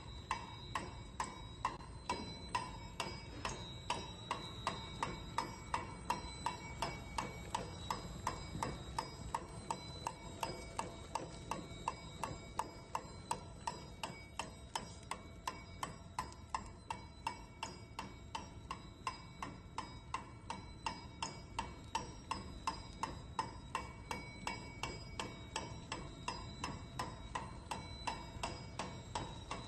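Automatic packaging and sealing machine running, its mechanism clicking at an even rate of about two a second over a steady whir.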